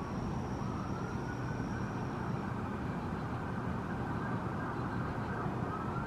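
Steady rumble of road traffic, with a faint distant siren wailing over it, its pitch rising slowly, holding, then rising again near the end.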